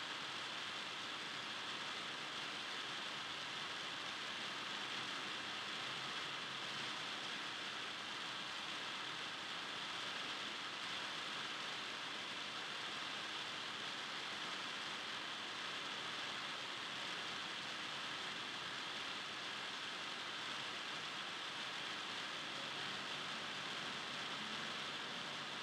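Steady, even hiss with no bounces, sneaker squeaks or voices standing out from it.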